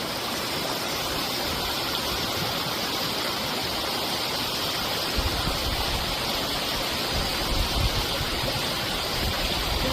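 Steady rushing outdoor noise like flowing water, with a low rumble joining in about five seconds in.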